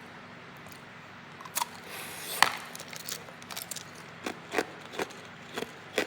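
A person biting and chewing hard ice. There is a sharp crack about two seconds in, the loudest sound, then crunches about twice a second.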